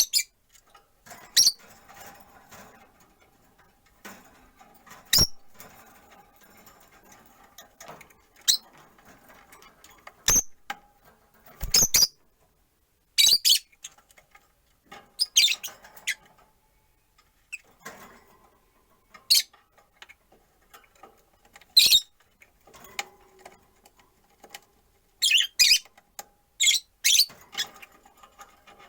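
Rosy-faced lovebirds giving short, sharp, high-pitched chirps at irregular intervals, with a quick run of calls near the end.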